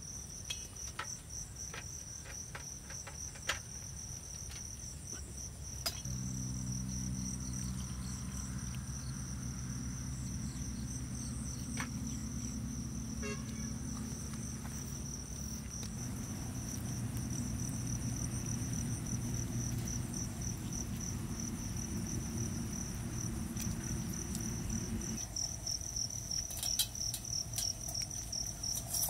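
Crickets chirping in a steady, fast-pulsing trill. Under it are a few light clicks of handled cooking things and a low hum that starts about six seconds in and stops near the end. Small clicks and crackles come near the end as the shell of a boiled egg is peeled by hand.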